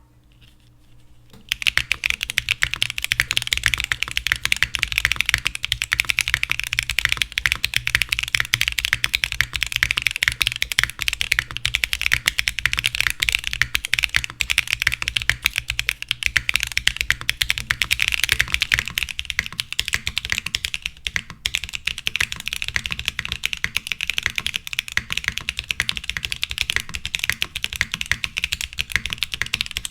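Steady rapid typing on a Mode Sonnet custom mechanical keyboard with Gateron Beer light tactile switches, GMK Grand Prix keycaps and a POM plate with no foam. It starts about a second and a half in and runs on with a couple of brief pauses near the middle.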